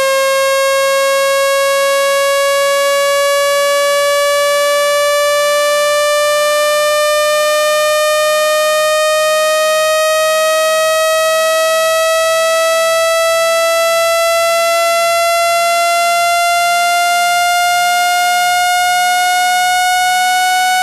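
Synthesized speaker-cleaning test tone, a loud, steady buzzy tone whose pitch rises slowly and evenly throughout.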